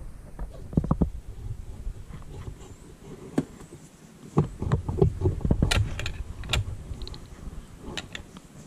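Metal parts of a 1973 Chrysler 35 hp outboard's lower unit clicking and knocking as the water pump housing is worked down the driveshaft and seated by hand, with low handling rumbles. The clicks come in a cluster in the second half.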